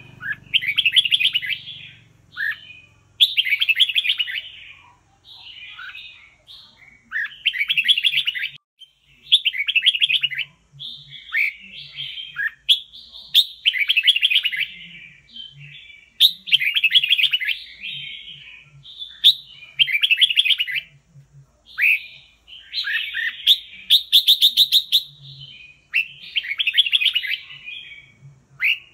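Red-whiskered bulbul singing: short, bright warbled phrases about a second long, repeated every one to two seconds.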